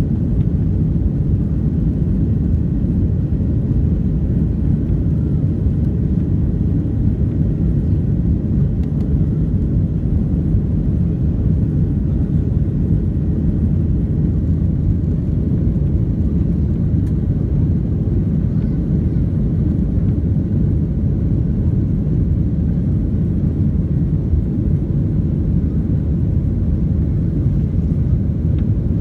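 Steady low rumble inside the cabin of a Ryanair Boeing 737-800 climbing after takeoff: the jet engines and the airflow over the fuselage.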